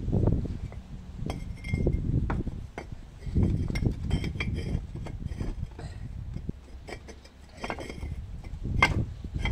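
Hollow clay bricks being shifted by hand, clinking and knocking against one another in irregular clatters.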